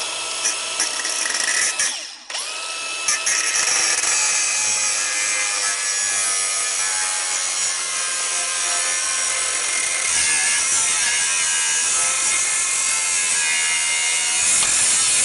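Angle grinder cutting through a seized suspension bolt. It cuts out briefly about two seconds in, spins back up with a rising whine, then runs steadily and stops right at the end.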